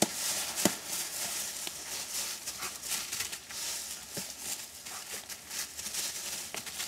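Dry fallen leaves rustling and crackling in quick, irregular scuffles as a dog and a person dart and lunge through the leaf litter in tug-and-chase play, with one sharper snap about half a second in.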